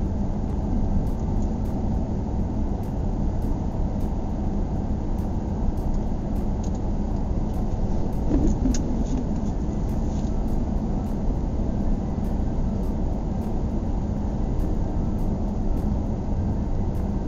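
2016 Ram 1500 pickup driving at a steady speed: an even rumble of road and engine noise, low and unbroken.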